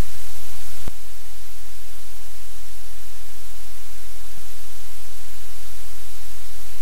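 Steady hiss and static from a livecam's microphone, with a constant low hum beneath it. A single click sounds about a second in.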